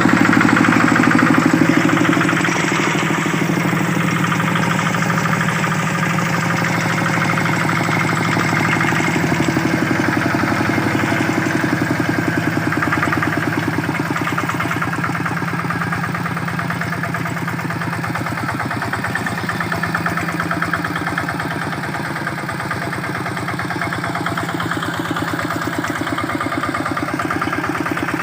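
Single-cylinder Kubota RD65 diesel engine of a Quick G600 two-wheel hand tractor running steadily with a rapid, even chugging beat, a little louder for the first couple of seconds.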